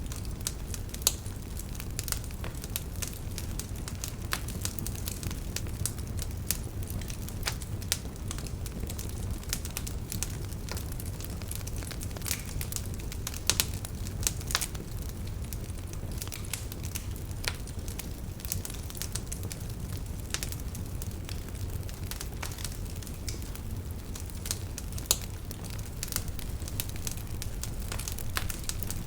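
Wood fire in a fireplace crackling: a steady low rumble of the flames with irregular sharp snaps and pops throughout, a few of them louder.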